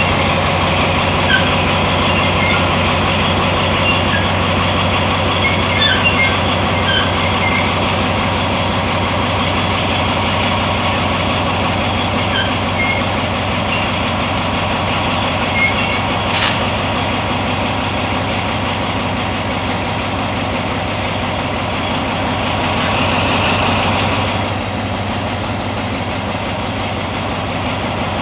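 Alsthom AHK diesel-electric locomotive's diesel engine idling with a steady, loud drone.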